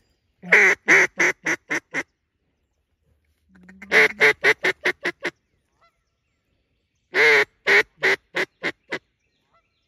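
Mallard duck call blown in three loud series, about three seconds apart. Each series is a long drawn-out quack followed by about half a dozen shorter, quickening quacks that fade off, the classic hail or greeting call used to turn circling ducks toward the decoys.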